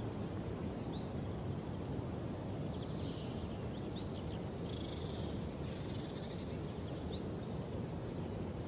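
Outdoor ambience: a steady low rumble of noise, with a bird calling over it in short chirps and brief trills, several times.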